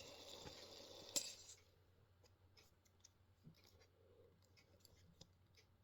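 Near silence, with a faint hiss over the first second and a half and a few soft clicks from a small toy being handled, the sharpest a little over a second in.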